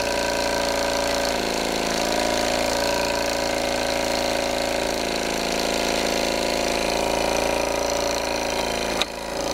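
Circa-1929 model steam boat engine, fired by an alcohol burner, running steadily at speed with a constant pitch; the sound dips briefly near the end.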